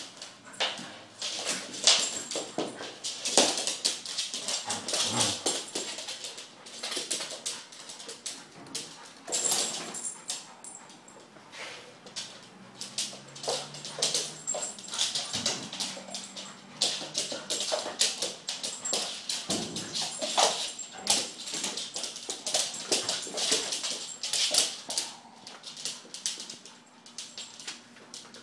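A Greater Swiss Mountain Dog and a blue merle dog play-fighting: snarling, whimpering and yipping, with many quick scrabbling clicks and scuffles of claws and paws on a laminate floor.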